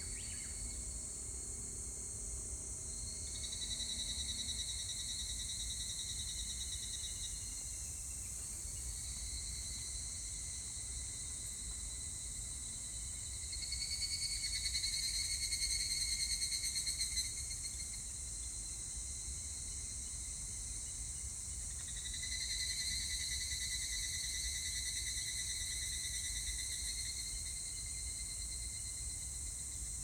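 Higurashi evening cicadas (Tanna japonensis) calling: three ringing phrases of about four to five seconds each, a few seconds apart, over a steady high hiss of insect noise.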